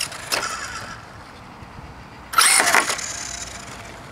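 Brushless electric RC car motors whining in bursts of throttle: a brief burst just after the start, then a louder one about two and a half seconds in whose pitch rises and falls.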